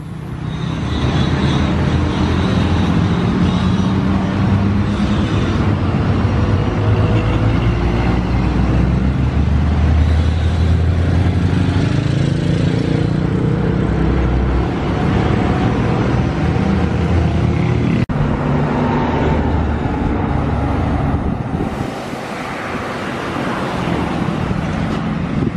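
Road traffic passing close by: engines of trucks, buses and motorcycles, with a heavy engine rumble loudest for most of it. The sound changes abruptly about 18 seconds in and again about 22 seconds in.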